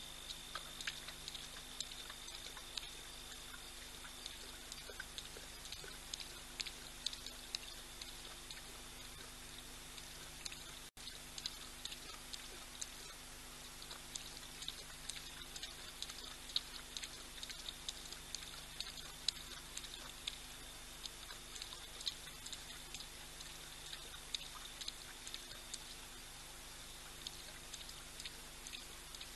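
Male lion lapping water: a long run of soft, irregular wet clicks, several a second, over a faint steady high tone and low hum.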